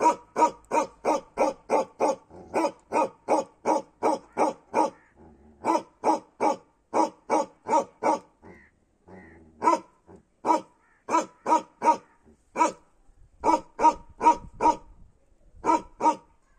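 Bakerwal livestock guardian dog barking repeatedly, fast runs of about three barks a second at first, then broken by short pauses and spacing out toward the end.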